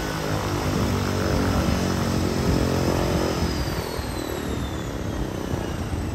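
De Havilland Otter floatplane's turboprop engine running with its propeller turning. About halfway through, a high turbine whine slides steadily down in pitch as the propeller's droning tone fades.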